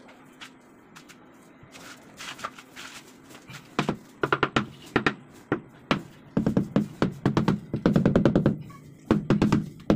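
Mallet tapping a ceramic wall tile to bed it into the mortar: runs of quick, dull knocks that start a little over a third of the way in.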